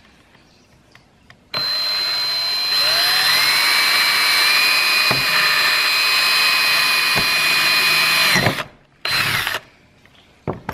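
Power drill running a 1/8-inch bit through a metal plate on a 4L80E transmission valve body to drill a pilot hole. It starts about a second and a half in, its whine rises and then holds a steady pitch for several seconds before it stops. A short second burst of drilling follows.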